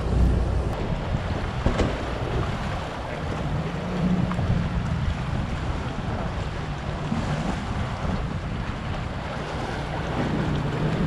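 Wind buffeting the microphone over choppy sea water splashing around a small boat's hull.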